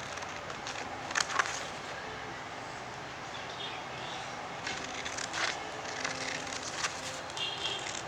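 Scissors snipping through tape-covered paper: a couple of sharp snips about a second in and a cluster around five seconds in, over a steady background hiss.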